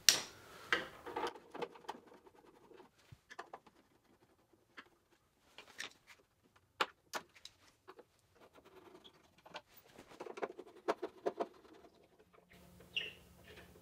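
Scattered light clicks and taps, bunched near the start and again about ten seconds in: a screwdriver taking small screws out of the metal stove faceplate of a VW Vanagon Westfalia kitchen cabinet, with the screws handled.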